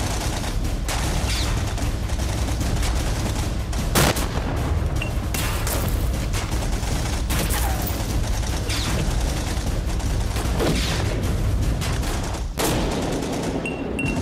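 Heavy gunfire: a dense run of rifle and machine-gun shots, with a louder single crack about four seconds in and another near the end, over a low steady rumble.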